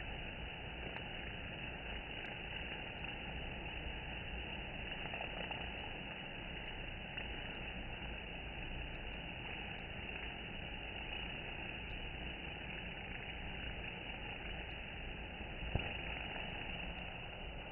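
Slowed-down, muffled ambience at a honeybee hive entrance: an even, low hiss-like hum with no distinct buzzes, and one soft knock near the end.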